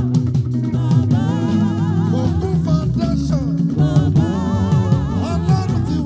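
Live gospel praise band playing: drum kit and bass guitar keep a steady groove under guitar and a lead vocal, whose melody lines waver up and down.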